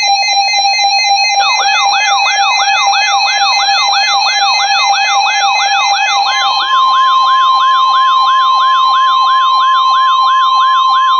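Electronic emergency alert attention tones announcing a severe thunderstorm warning. A steady buzzy tone is joined about a second and a half in by a siren-like rising sweep that repeats about two and a half times a second. About six seconds in, the buzzy tone gives way to a steady higher tone.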